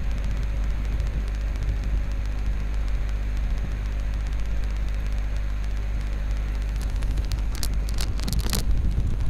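Steady low rumbling background noise from the recording microphone, with a cluster of sharp clicks about seven to eight and a half seconds in.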